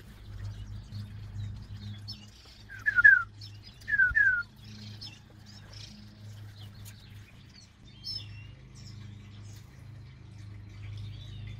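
Blue jay calling: a quick run of three down-slurred notes about three seconds in, then two more a second later. Fainter chirps of small birds and a low steady hum run underneath.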